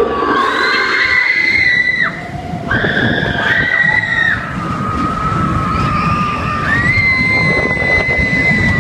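Roller coaster riders screaming: several long, high screams held one after another and partly overlapping, over the low rumble of the coaster train running on its track.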